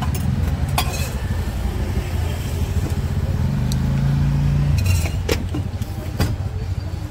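Steady road-traffic rumble, with one vehicle's engine growing louder for about a second and a half past the middle. A few sharp clicks come from a spoon knocking against the spice jars and steel tins.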